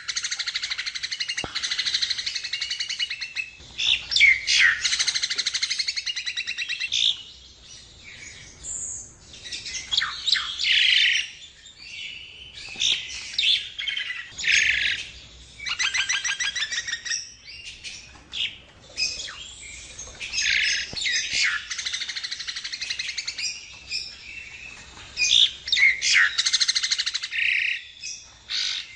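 Jalak nias myna singing: a long, varied run of chattering phrases, whistles and fast rattling trills, broken by short pauses. It is a lure (pancingan) recording, played to get caged birds singing loudly.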